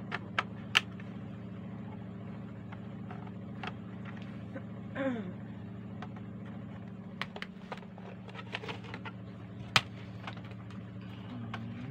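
Sharp clicks and knocks from a Gardiner G-88HD Optimo satellite receiver's case being handled and its cover taken off, including a few loud knocks in the first second and another about ten seconds in, over a steady low hum.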